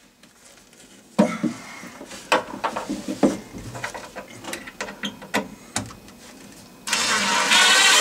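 A series of clicks and knocks, then about seven seconds in a Makita 18V cordless impact driver starts driving a screw into a cabinet door hinge. It gets much louder about half a second later.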